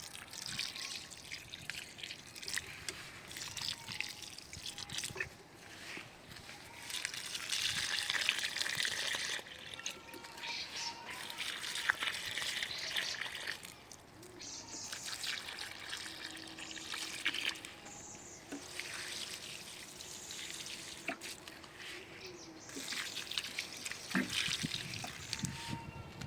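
Water trickling and splashing, with many small crackling drops, coming in stretches of several seconds with quieter gaps between.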